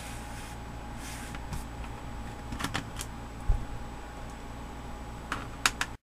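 Light clicks and taps of a screwdriver working screws out of a laptop's plastic bottom case: a few around the middle, a soft thump, and a quick cluster near the end, over a steady low hum.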